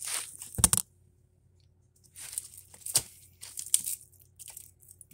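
Crisp lettuce leaves being torn apart by hand, a series of short, irregular crackling rips and rustles. A single thump comes just under a second in, before the tearing starts.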